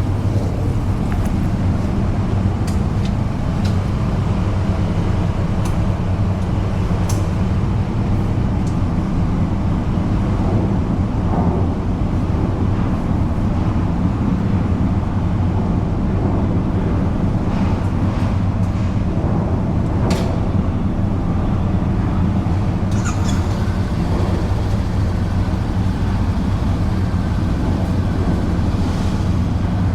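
Carbureted single-cylinder engine of a 2003 Yamaha SR400 running at a steady speed, a low, even hum that neither rises nor falls, with a few faint clicks.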